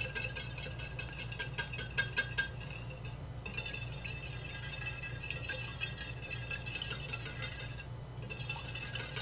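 Stainless wire whisk beating egg, milk and cream in a shallow ceramic plate, its wires rattling rapidly against the plate, with two short pauses, about three and eight seconds in.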